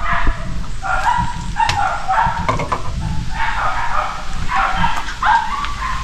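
A dog barking over and over, short barks coming every half second or so, often in pairs.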